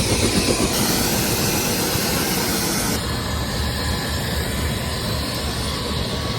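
Helicopter engine and rotor running, a steady loud noise with a hiss on top; the hiss dulls slightly about three seconds in.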